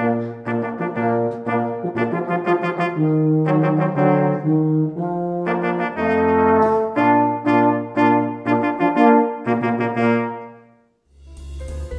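Small brass ensemble, cornets over a euphonium, playing the last bars of a simple march-like tune in steady, detached notes, ending on a held final note that fades out. Just before the end, different music with drums starts.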